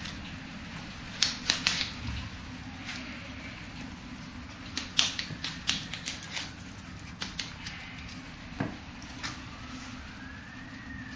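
Irregular light clicks and taps as toy poodle puppies scamper and play on a tiled floor. Near the end a faint siren rises and falls in the background.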